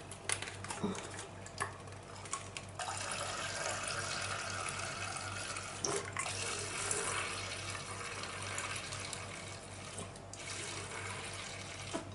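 Hydrogen peroxide pouring from an upturned plastic bottle into a glass measuring jug, a steady splashing stream. A few light clicks come in the first three seconds.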